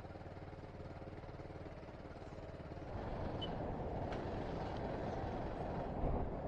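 Motorcycle engine running while riding, a steady low pulsing that gets louder about three seconds in.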